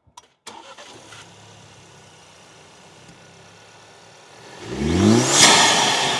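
2024 Ford Ranger's 2.3L EcoBoost turbocharged four-cylinder engine idling low and steady, then revved once about four and a half seconds in: the engine note climbs quickly and falls back, with a rising hiss from the intake peaking along with it.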